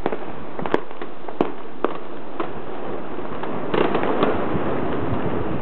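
Scattered fireworks bangs, some distance off: single sharp pops every half second or so, then a quick cluster of pops about four seconds in, over a steady background hiss.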